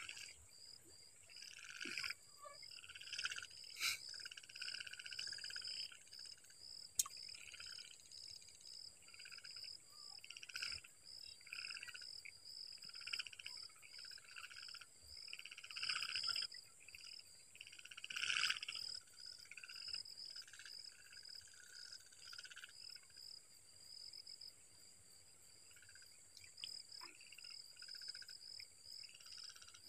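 Faint frogs calling at a pond at night: many short repeated croaking calls that overlap and come in clusters with pauses, over a steady high-pitched chirping that repeats about twice a second.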